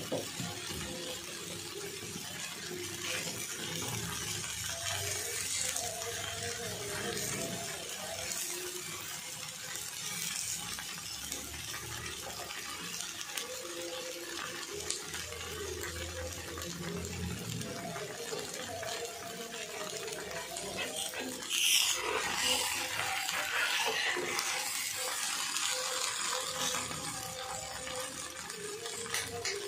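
Dosa sizzling on a hot iron tawa, a steady hiss. About two-thirds of the way through a louder scraping burst comes as a metal spatula works the dosa loose and folds it.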